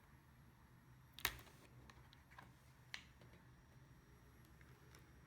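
Sparse small plastic clicks and taps as the little glued-on covers are pried off a ThinkPad laptop's casing, with one sharp click about a second in and another near three seconds; otherwise very quiet.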